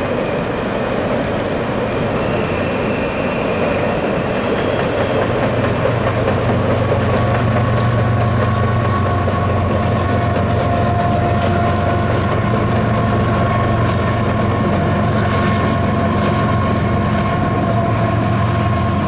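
Coal hopper cars rolling across a steel deck truss bridge, their wheels clattering over the rails. From about six seconds in, the steady drone of a diesel locomotive's engine builds under it as the train's rear distributed-power unit comes onto the bridge.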